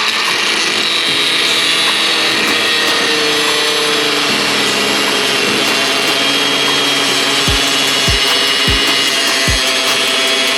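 Angle grinder with a cutting disc running under load, a steady high whine over a harsh grinding noise as it cuts. A few low thumps come in during the second half.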